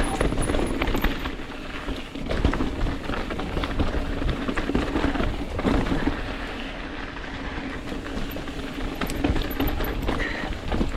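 Mountain bike rattling and clattering over a loose trail, with many small knocks in quick succession. A steady low rumble of strong wind buffets the microphone.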